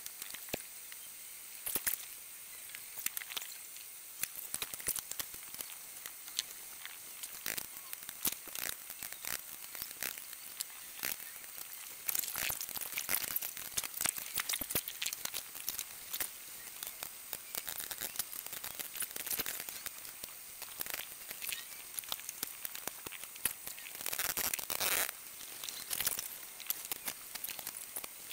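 Kitchen work sped up on fast-forward: a dense, irregular run of quick clicks and clatter from utensils and cookware over a steady high hiss, busiest a little before the end.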